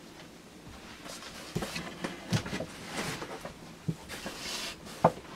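Handling noise: scattered soft knocks and rustles, with a sharper knock about five seconds in.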